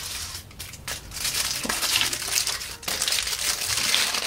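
Aluminium foil wrapper of a chocolate bar crinkling and crackling as it is peeled open by hand, busiest in the second half.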